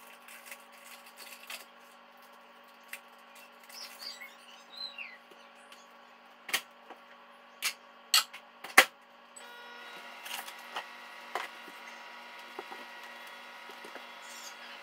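Light clatter of kitchenware, then four sharp clacks about six to nine seconds in. After that, the over-the-range microwave starts up and runs with a steady hum.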